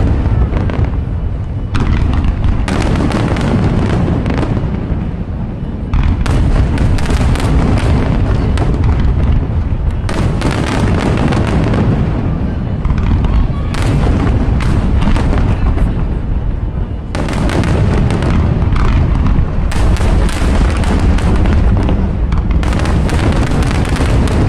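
Fireworks display: a near-continuous barrage of shell bursts, deep booms mixed with sharp cracks and crackle, with brief lulls between volleys.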